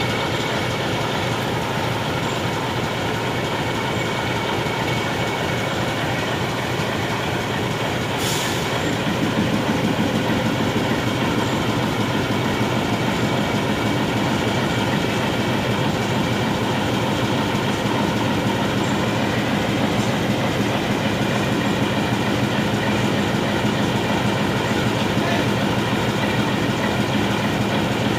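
YDM4 diesel-electric locomotive's ALCO 251 six-cylinder engine running steadily. It gets louder with a stronger low hum about nine seconds in, just after a short sharp click.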